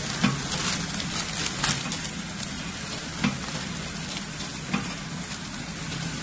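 CB-300S wire ball packing machine running, with a steady hiss and a short clack about every second and a half as it cycles. Plastic packing film crinkles as the packs are handled.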